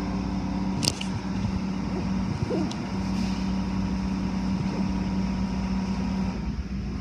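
Automatic car wash machinery running, heard from inside the car: a steady machine hum with water and cloth strips working over the car, and a sharp click about a second in. The hum drops out shortly before the end.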